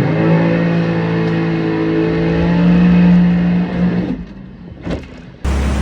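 Seabreacher watercraft engine held at high throttle for about four seconds, then falling away as the craft makes a jump. A sudden loud rushing noise with a low rumble comes in near the end.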